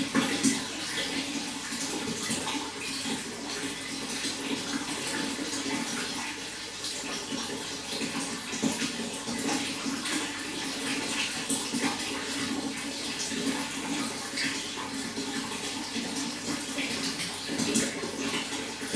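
Running water flowing steadily, with many small splashes and trickles throughout.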